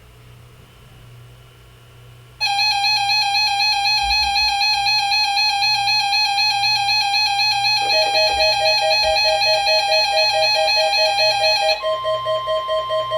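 A faint hum, then about two and a half seconds in a weather radio receiver's alert alarm starts: a loud, steady, buzzy electronic beep. A second, lower pitch joins about 8 seconds in, and near the end the alarm switches to a pulsing two-pitch tone.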